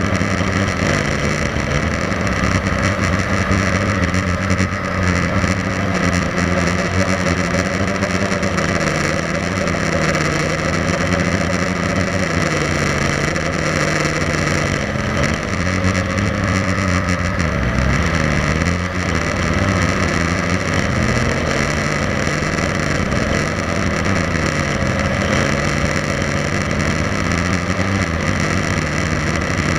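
Blade 350 QX3 quadcopter's four electric motors and propellers buzzing in flight, recorded by the onboard camera. The pitch rises and falls as the throttle changes.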